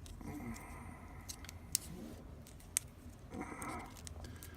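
Lock and key being handled: a few sharp, small metallic clicks, the two loudest about a second apart, over quiet rustling.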